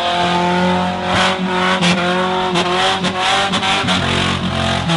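Straight-piped engine of a lifted mud truck on big mud tires, revving up and down as it drives through deep mud, with several sharp knocks along the way.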